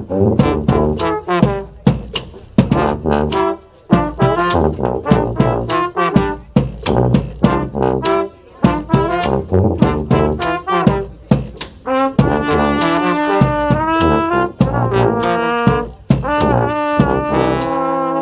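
Brass band playing a pop tune: trumpet, trombone and sousaphone together over a beat of sharp percussive hits, moving into longer held brass notes about two-thirds of the way through.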